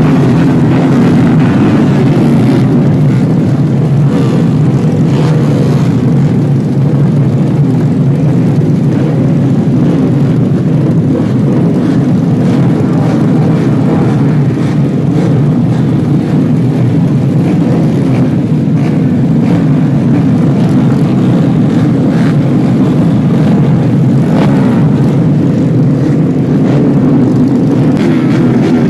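Engines of many racing underbone motorcycles running at once in a tightly packed group, a loud continuous drone.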